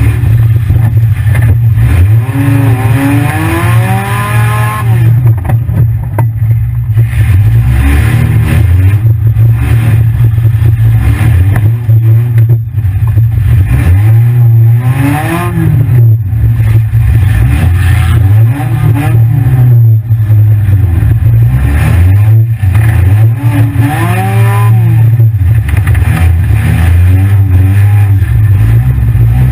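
Engine of a 1997 Honda Accord demolition derby car, heard from inside the cabin: running loud and revving up and back down several times.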